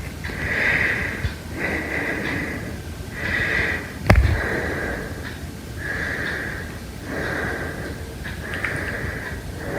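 Heavy breathing: loud, noisy breaths about a second long following one another with short pauses, each with a hissing, slightly whistling edge. A single sharp knock about four seconds in is the loudest sound.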